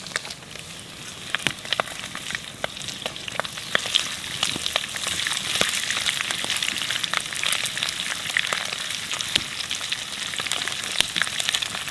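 Armadillo chicharrones frying in fat in a steel pan over a wood fire, sizzling steadily with frequent sharp pops and spatters. The sizzle picks up a little after about a second.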